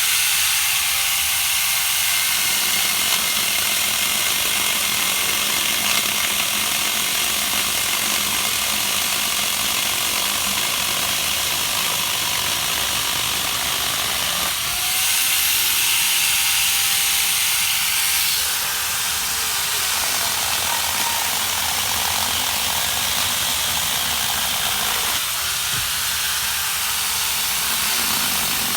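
Chainsaw running and cutting wood, its engine note shifting a few times as it bites.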